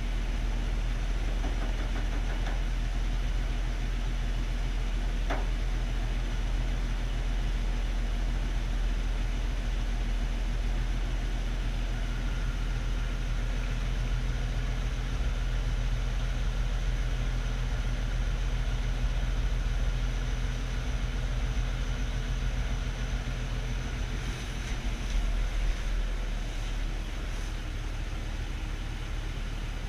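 1945 CMP HUP military truck's engine running steadily at idle, carrying the strange noise the owner is trying to identify, which he says comes only after the vehicle has stood a long time in very cold weather. A single sharp click about five seconds in.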